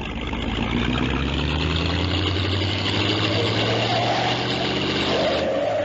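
A motor vehicle engine running at a steady speed, used as a sound effect, with a hiss of air over it. It cuts off shortly before the end.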